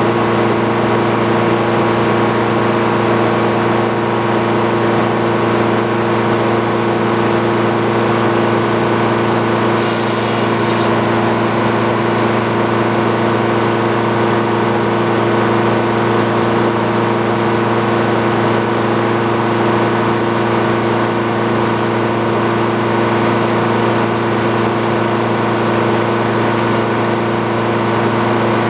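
A machine running steadily at a constant speed, with an even hum and no change in load.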